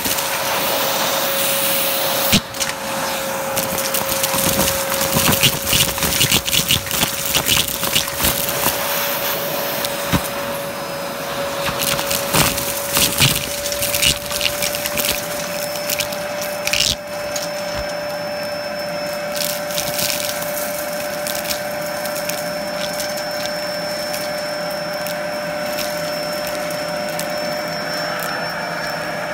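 Vacuum cleaner running with a steady motor hum while its nozzle sucks up gritty debris from carpet: seeds, pebbles and coins clatter and rattle up the nozzle for the first half or so. After that it is mostly the motor running steadily.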